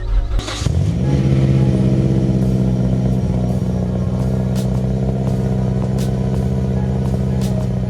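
Mazdaspeed 6's turbocharged 2.3-litre four-cylinder starting about half a second in, its pitch rising briefly before settling into a steady idle.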